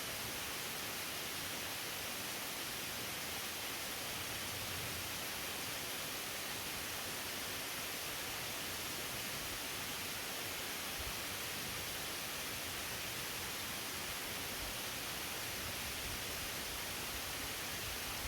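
Waterfall rushing steadily: an even wash of falling water with no breaks.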